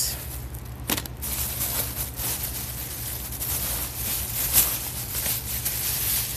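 Crinkling and rustling of packaging as small blind-bag packets are rummaged out of a bag, with a sharp click about a second in.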